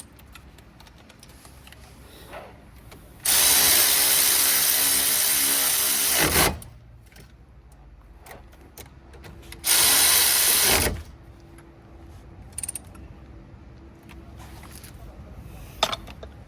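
Battery power tool driving in the two brake caliper screws: a run of about three seconds that winds down as it stops, then a second, shorter run about six seconds later.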